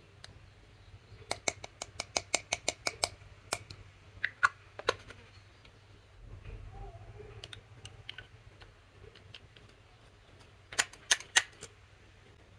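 Slime being pressed and stretched by hand, giving sharp clicking pops as air pockets burst: a quick run of about ten clicks shortly after the start, a few spaced pops, then another short burst of clicks near the end.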